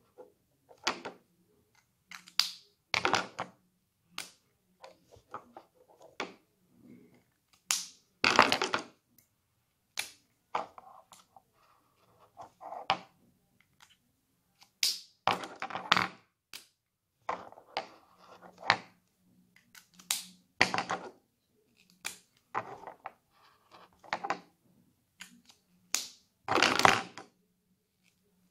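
Plastic brush-marker caps being pulled off and pressed back on, with the pens clicking and knocking against each other and the desk: an irregular run of sharp clicks and snaps, a few of them louder.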